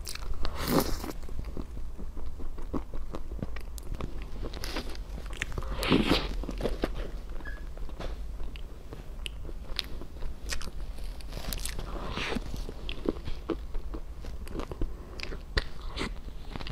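Close-miked crunchy biting and chewing of a frozen cake covered in colourful sprinkles, with many small crackles and a few louder crunches about a second in, about six seconds in and about twelve seconds in.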